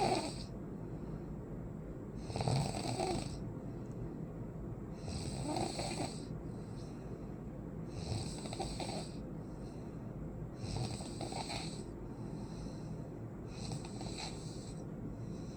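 A person snoring in sleep: a rough snore about every three seconds, six in all, each followed by a fainter breath out.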